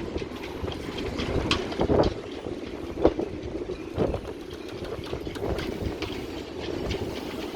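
Footsteps and knocks on a motor cruiser's deck, several sharp knocks roughly a second apart, over a steady low rumble.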